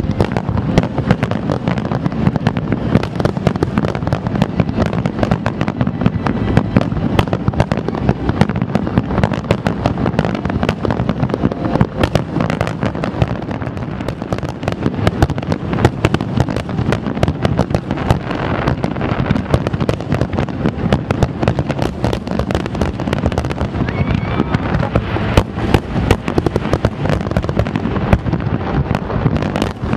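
A large aerial fireworks display: a dense, unbroken barrage of shell bursts, bangs and crackles overlapping one another.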